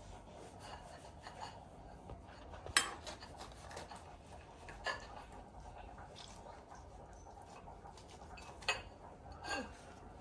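Kitchen utensils clinking and scraping against dishes, with a few sharper clinks standing out, the loudest about three seconds in.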